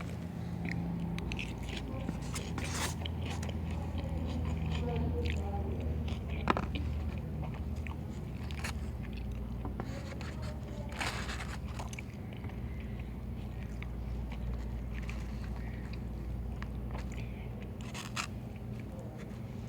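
A person chewing and biting food close to the microphone, with wet smacks and scattered sharp clicks, the loudest about six and a half seconds in, over a steady low hum.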